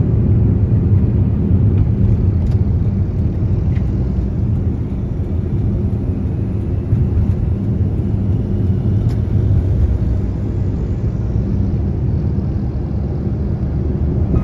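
Steady low rumble of road and engine noise from a moving vehicle, with a few faint ticks.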